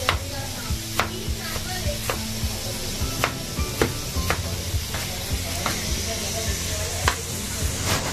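Chef's knife dicing tomatoes on a cutting board: sharp, irregular knocks of the blade meeting the board, about one or two a second, over a steady hiss.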